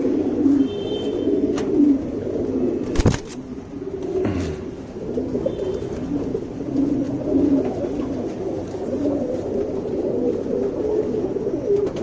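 Domestic pigeons cooing steadily in a low, warbling drone, with a single sharp click about three seconds in.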